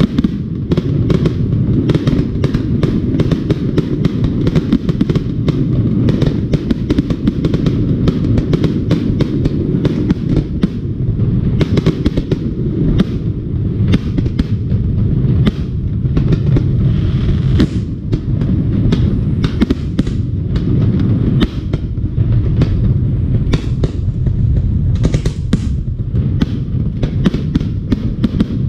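Aerial firework shells bursting in rapid, overlapping succession: many sharp bangs over a steady low rumble of booms.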